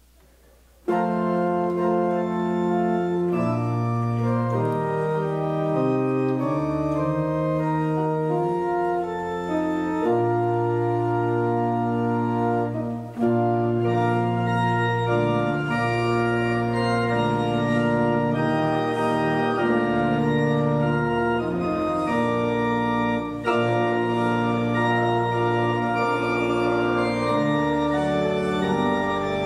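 Church organ playing a hymn tune in sustained chords, starting about a second in, with short breaks between phrases near the middle and again later.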